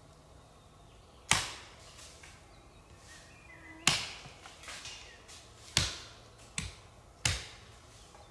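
Sharp knocks of wood being struck by hand with a tool: four hard blows, unevenly spaced one and a half to two and a half seconds apart, with a lighter knock just before the last.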